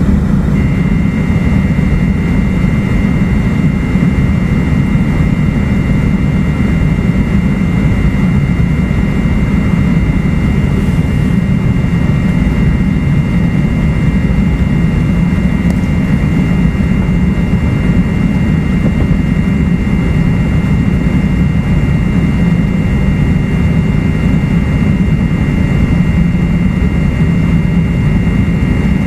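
Running noise of an E2 series Shinkansen heard from inside car E226-1205: a loud, steady deep rumble of the train on the rails, with a thin high whine that comes in about half a second in and holds steady.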